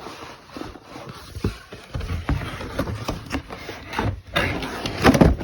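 Packaging being handled while unboxing: cardboard and plastic rustling with irregular knocks and bumps, busiest near the end.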